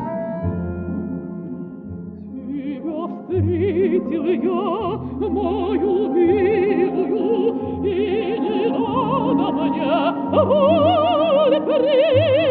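Operatic mezzo-soprano voice singing a Russian romance with wide vibrato, accompanied by an orchestra of Russian folk instruments. The voice comes in about three seconds in, after a short instrumental passage.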